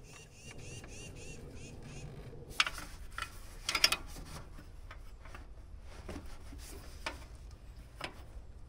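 Hands working the rubber air-intake hose and its fittings on a John Deere 755 engine: rubbing and handling noise with a few sharp clicks and knocks. The two loudest knocks come in the first half, the second of them the loudest.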